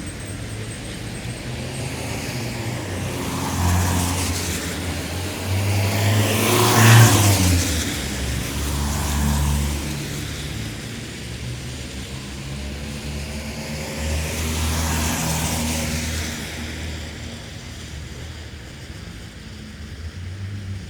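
Cars passing one after another on wet asphalt, each tyre hiss swelling and fading over a low engine rumble. The loudest pass comes about seven seconds in, with others around four, nine and fifteen seconds.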